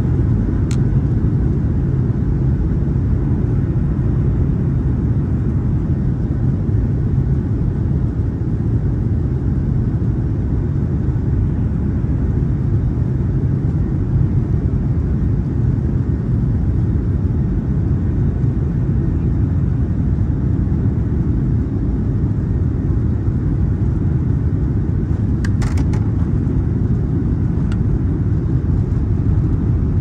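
Boeing 737-800 cabin noise on the takeoff roll: its CFM56-7B turbofans at takeoff thrust and the airframe rolling down the runway give a loud, steady low rumble. There is a faint tick about a second in and a couple of light rattles near the end.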